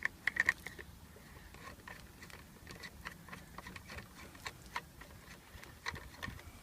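Light metallic clicks and ticks from handling a Crosman 2240 air pistol and its homemade silencer as they are fitted together. There is a quick cluster of sharper clicks in the first second, then scattered small ticks.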